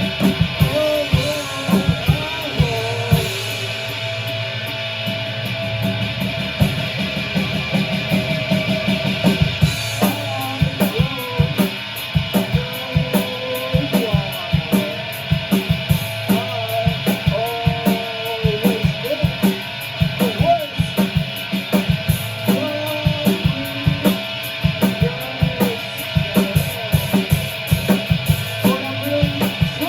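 Rock band playing live, with a drum kit and guitar. The drumming gets busier about ten seconds in.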